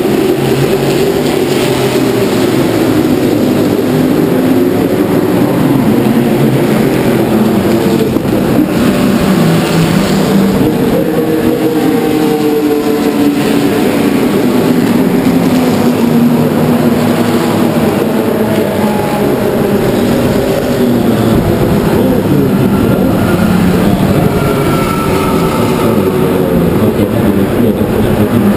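Historic racing car engines running at speed as cars pass on the straight one after another. Several engine notes overlap, rising and falling in pitch, loud and without a break.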